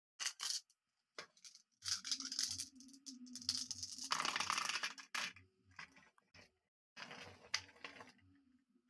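Glass marbles clicking and rattling together as they are handled in the hands and let roll, in several bursts of clicks with rustling handling noise. A faint low hum sits under some of the bursts.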